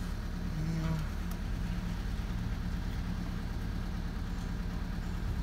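Volkswagen Golf 6's 2.0 TDI four-cylinder diesel engine idling steadily seconds after a cold start in about minus nine degrees, heard from inside the cabin.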